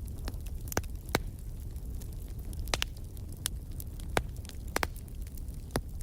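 Wood fire crackling in a fireplace: sharp, irregular pops and snaps over a steady low rumble of the burning logs.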